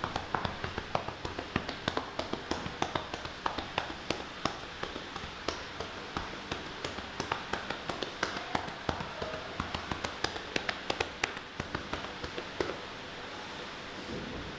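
Rapid, irregular tapping, about four to five sharp taps a second, over a steady hiss; the taps stop near the end.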